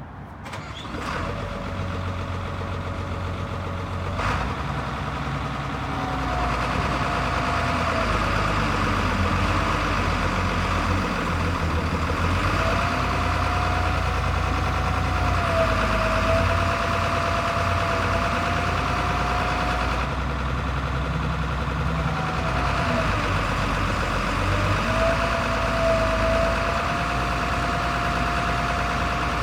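Diesel engine of a 1995 Hitachi EX270LC excavator running, its level climbing over the first few seconds and then holding steady. A whining tone bends up and down over the engine noise, and two sharp clicks come in the first five seconds.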